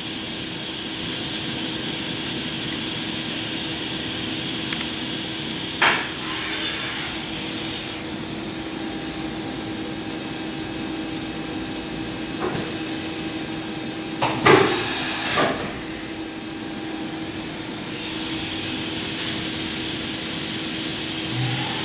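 Doosan DNM 500 II vertical machining center running under power: a steady mechanical hum with a constant tone. A sharp clunk comes about six seconds in, and a louder clattering burst with a hiss comes around fourteen to fifteen seconds in.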